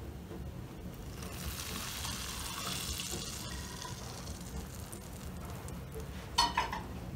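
Hot melted butter and olive oil with dried mint poured from a frying pan onto yogurt soup, sizzling and foaming as it hits. The hiss swells over a few seconds and then fades, with a few light knocks near the end.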